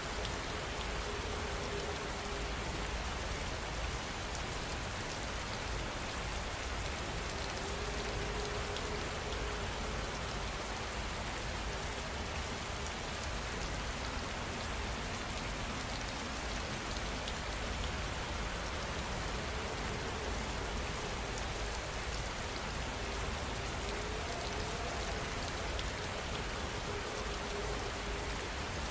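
Rain falling steadily as an even patter, with a faint low tone rising and fading a few times in the background.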